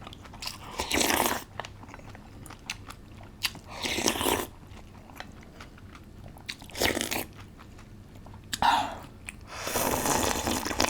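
Close-miked eating: five loud crunchy bites and chews of spicy noodles with crisp old cucumber (nogak), with small wet mouth clicks between them.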